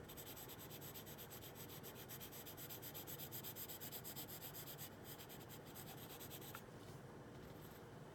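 Colored pencil shading lightly on drawing paper: a faint, scratchy rubbing made of many small quick strokes, which dies down over the last few seconds as the pencil is lifted.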